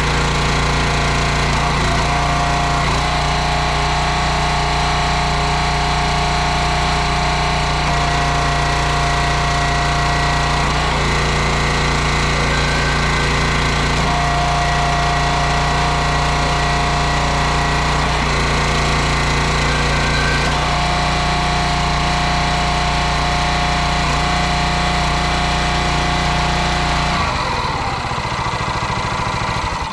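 Small gasoline engine of a 22-ton hydraulic log splitter running steadily, driving the hydraulic pump while logs are split, with a whine that comes and goes every few seconds as the ram works. Near the end the engine note changes and the engine is shut off.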